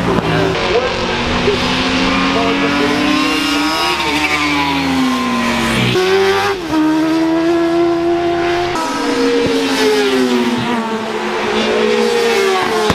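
Racing motorcycles passing at speed on a road circuit, engines at high revs, one after another. The engine note climbs and then drops sharply as each bike goes by, with sudden changes where shots are cut together.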